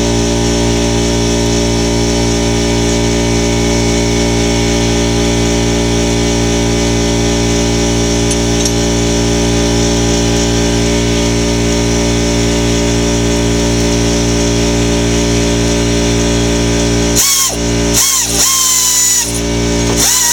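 Air compressor motor running steadily with an even hum. About three seconds from the end, several short bursts from an air-powered tool cut in, each a loud hiss with a whine that rises and falls.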